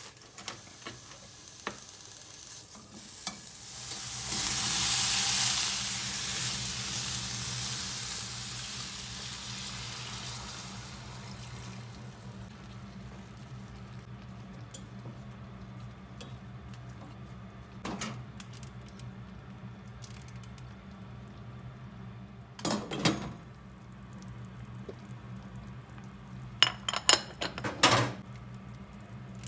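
Pork pieces sizzling in a hot frying pan: a loud hiss that swells about four seconds in and dies away slowly over several seconds, over a low steady hum. Later come a few sharp knocks and clinks of utensils against the pan, with a cluster near the end.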